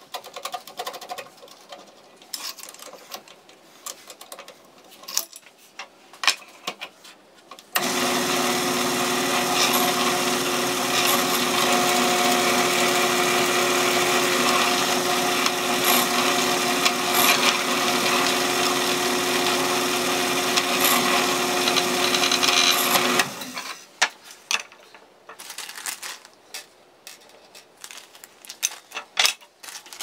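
Drill press motor running at a steady pitch for about fifteen seconds, drilling into a PVC pipe frame. It starts abruptly about eight seconds in and stops a little after twenty-three seconds. Before and after it there are light clicks and knocks of parts being handled.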